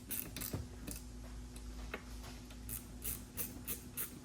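Ratchet wrench clicking as small bolts are snugged up, in runs of about four clicks a second, with a couple of light knocks in between.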